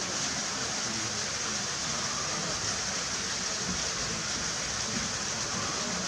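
Steady rushing and splashing of water pouring into a pool from a spout.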